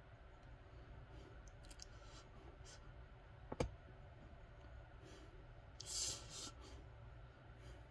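Quiet room noise with a few faint clicks, one sharp click about three and a half seconds in, and a short breathy exhale about six seconds in, from a person doing dumbbell rows.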